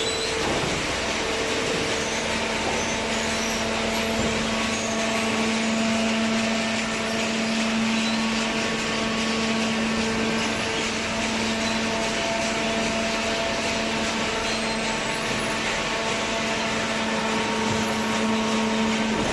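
Hydraulic cardboard baler's electric motor and pump running steadily: a constant mechanical hum and hiss, with a steady whine that comes in about a second in and holds.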